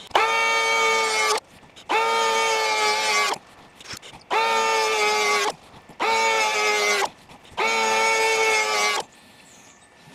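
DeWalt DCP580 20V brushless cordless power planer running in five short bursts of about a second and a half each. Each burst is a high, steady whine whose pitch sags slightly at the end, as the planer shaves thin layers off a wooden beam at its shallowest depth setting.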